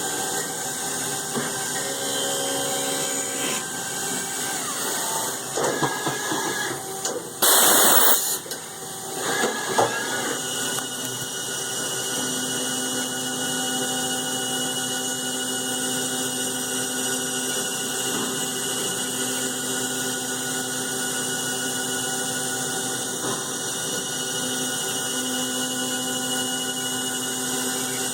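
Mazak CNC milling machine cutting Delrin dry, without coolant: steady machine noise with a whine of several tones. A loud, sudden rushing burst lasting under a second comes about seven seconds in, amid some irregular clatter, and a new low tone joins about twelve seconds in.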